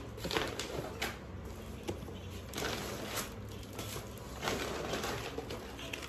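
Handling noise: a few short rustles and light knocks of plastic and fabric shopping bags and small objects being moved about.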